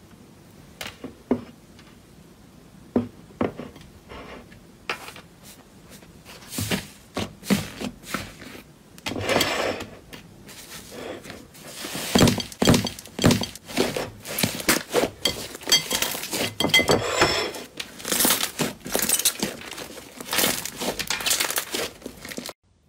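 Thick slime squeezed and kneaded by hand, making sharp pops and crackles: scattered single pops at first, then dense crackling from about nine seconds in, cut off suddenly near the end.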